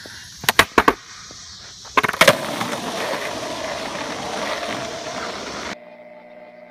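Skateboard: a quick run of sharp wooden clacks of the board, a second cluster about two seconds in, then the wheels rolling steadily on asphalt until the sound cuts off suddenly near the end.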